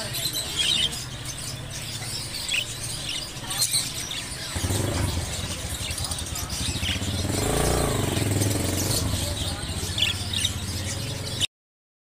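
Budgerigars giving short scattered chirps over a low steady hum. An engine sound swells and fades about two-thirds of the way through, and the sound cuts off abruptly just before the end.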